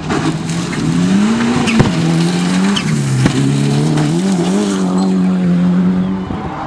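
Rally car engine at full throttle passing close, its revs climbing and dropping through gear changes, with a sharp crack at two of the changes. The car slides through a loose dirt corner.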